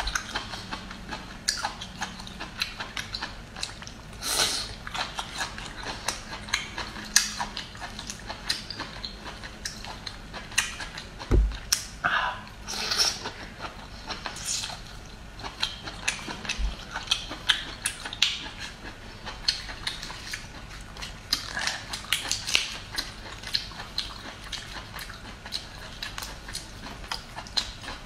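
Close-miked chewing and biting of boiled bamboo shoot: irregular short clicks and crunching from the mouth. A single low thump about eleven seconds in.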